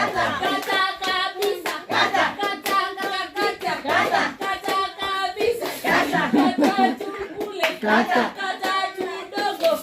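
A group of people singing together while clapping their hands in a steady rhythm, several claps a second.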